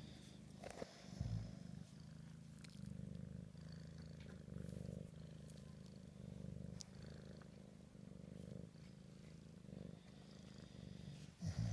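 Bully-breed dog with a short, pushed-in nose snoring in deep sleep: a low, steady rattling rumble that swells with each breath.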